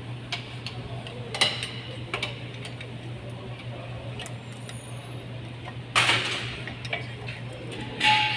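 Metal brake parts clicking and clinking as pads and their plates are handled and fitted into a four-piston brake caliper, with a few sharper knocks, the loudest about six and eight seconds in. A steady low hum runs underneath.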